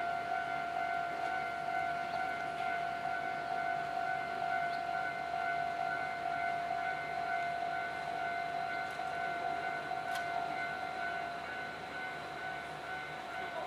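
Railway level-crossing warning bell sounding, a steady high ringing tone that starts suddenly and keeps going.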